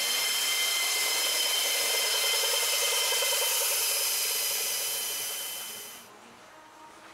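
Air-powered shop tool running steadily, a loud hiss with a high whine over it. It fades and stops about six seconds in.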